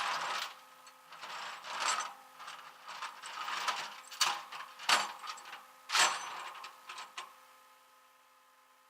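Irregular handling clatter: rubbing and rattling with several sharp knocks, about three of them loudest around the middle, over a faint steady hum, dying away near the end.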